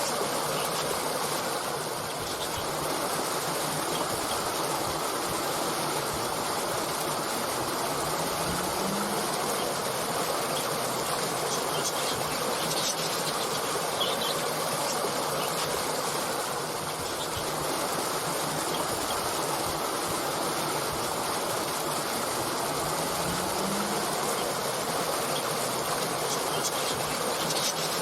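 Steady rushing of a flowing stream, with a few faint, brief bird chirps over it.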